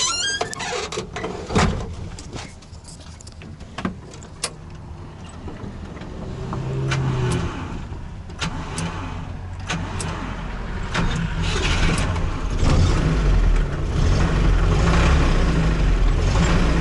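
A few clicks and knocks, then the UAZ-469's engine starts about six or seven seconds in and runs, growing louder toward the end. The engine has lost oil pressure and developed a knock, which the owner suspects is a spun bearing shell.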